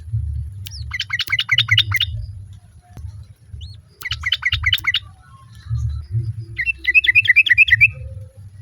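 Yellow-vented bulbul (trucukan) calling in three short bursts of rapid, bubbling chattering notes, about a second in, at about four seconds and near the end, the last burst a little lower.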